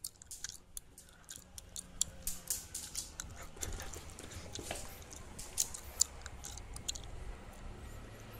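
A dog being scratched on the itchy spot of its back: irregular faint clicks and scratchy ticks from the scratching and the dog's twitching, with a low rubbing rumble in the middle.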